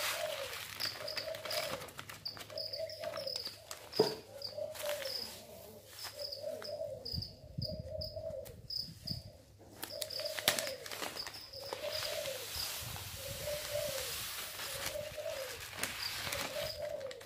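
Thai cu gáy doves cooing, a short rising-and-falling coo repeated about once a second, with a rapid high chirping behind. Over it comes the rustle of a plastic bag and seed being poured, with a couple of sharp clicks, about 4 and 10 seconds in.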